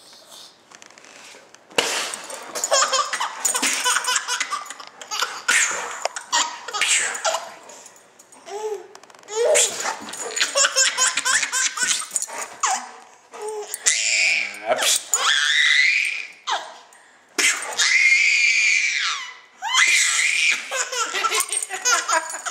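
A baby laughing hard in repeated bouts of belly laughter, breaking out suddenly about two seconds in, with high-pitched squealing laughs near the middle and again near the end.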